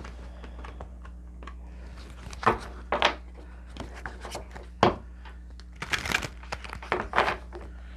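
Tarot cards being handled and shuffled: a series of sharp card slaps and riffles, the loudest about two and a half, three, five, six and seven seconds in, over a faint steady hum.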